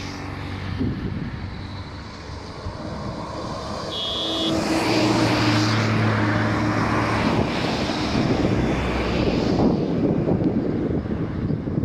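A steady engine drone mixed with a noisy rush of wind on the microphone, growing louder about four seconds in.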